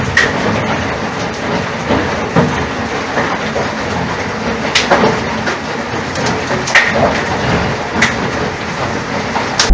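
Hailstorm: hail and rain falling hard, a dense steady rush broken by a few sharp knocks of hailstones striking nearby, the clearest about five, seven and eight seconds in.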